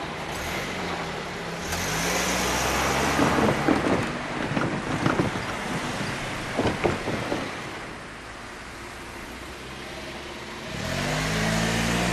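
Road vehicles driving across a railway level crossing: engines running, a series of sharp knocks in the middle, and another engine pulling away with a rising note near the end.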